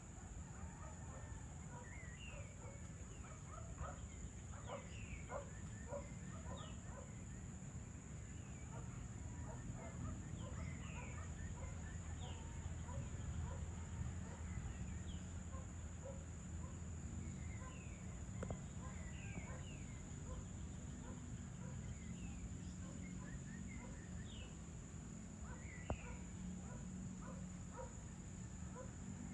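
Outdoor dusk ambience: many small birds chirping, with short rising and falling calls scattered throughout. Beneath them run a steady high-pitched insect drone and a low background rumble.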